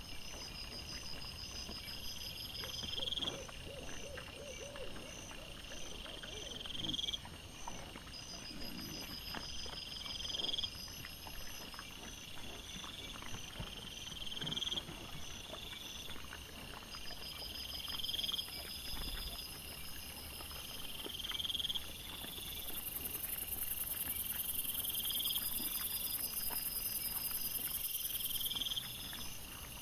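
Night chorus of calling animals: a short rising call repeats about every three and a half seconds over a faster, higher pulsing chirp. A steady high hiss comes in for several seconds near the end.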